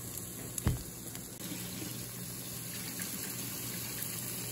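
Thick raw steak sizzling on the red-hot grate of a Philips smokeless infrared indoor grill, a steady hiss just after the meat goes on. A single short thump comes less than a second in.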